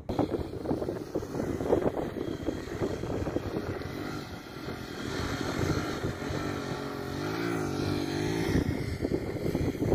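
A motorcycle engine running, over rough wind noise on the microphone; near the end its pitch wavers up and down for a couple of seconds.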